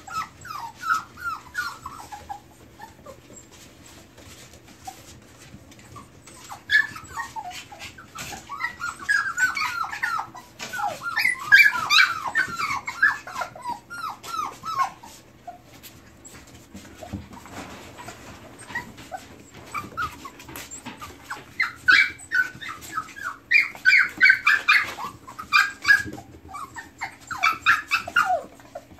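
Cockapoo puppies whining in many short, high cries that fall in pitch, coming in busy bursts with quieter stretches between as they play together.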